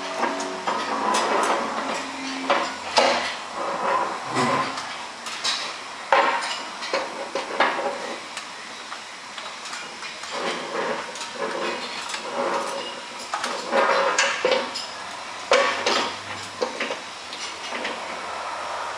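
Painted steel top beam of a two-post car lift clanking and knocking against the tops of the steel columns as it is lifted and worked into place, in irregular metal clanks and scrapes, a few of them sharp and loud.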